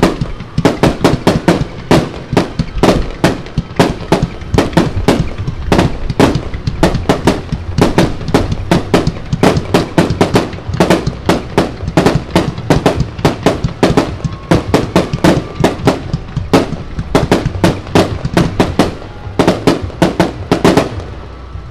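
Aerial fireworks going off in a rapid, continuous barrage of bangs, about four a second, that stops abruptly near the end.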